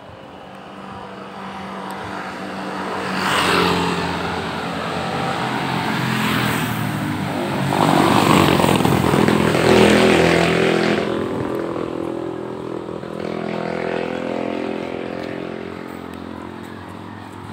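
Motorcycles passing on the street, their engines swelling and fading: one loudest about three to four seconds in, a louder one around eight to ten seconds in.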